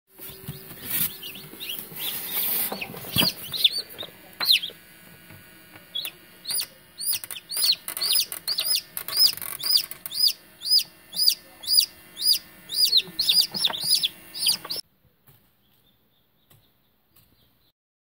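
Newly hatched chicken chicks peeping, a regular run of short high peeps about two a second, after a few knocks and rustling at first. The peeping cuts off suddenly near the end.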